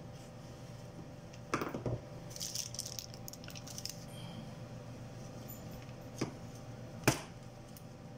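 Knocks and light clatter of a power-supply circuit board and metal parts being handled on a workbench: a few knocks about a second and a half in, light rattling after, and one sharp knock near the end, the loudest. A low steady hum runs underneath.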